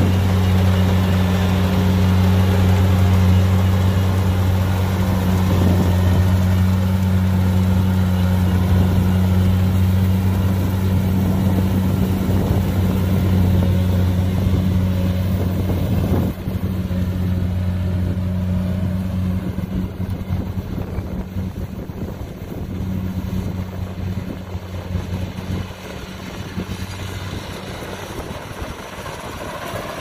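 Kubota DC70 combine harvester's diesel engine and threshing machinery running under load with a steady low drone. The sound drops suddenly about halfway through and then grows fainter as the machine moves off.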